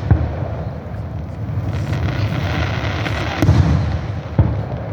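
Aerial fireworks going off: sharp bangs of bursting shells right at the start, about three and a half seconds in and again just after four seconds. Between them is a spell of crackling over a steady low rumble.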